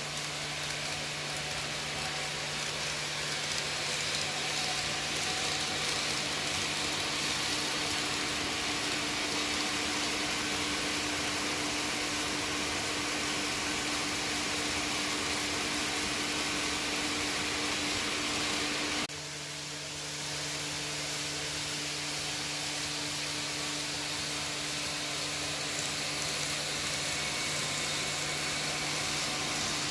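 N gauge model train running on the layout: a steady motor hum under a hiss of wheels on track. The sound cuts abruptly about 19 seconds in and picks up again slightly quieter.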